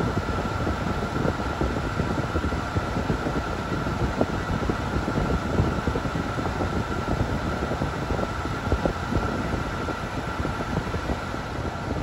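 Car air-conditioning blower pushing cold air out of the center dash vent: a steady rush of air with buffeting on the microphone and a faint steady whine.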